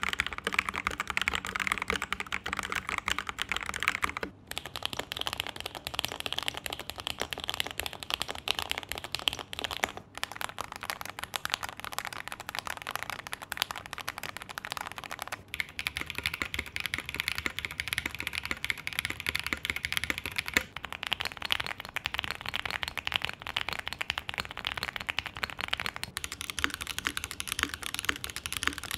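Fast, continuous typing on a mechanical keyboard, a dense stream of key clacks. The tone of the clacking changes abruptly every five or six seconds.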